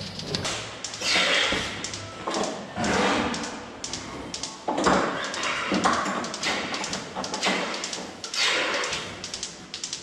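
Milking parlour at work: irregular bursts of hissing air, each fading out within about a second, as milking units' teat cups are put onto cows' teats and draw air before they seal. Music plays faintly underneath.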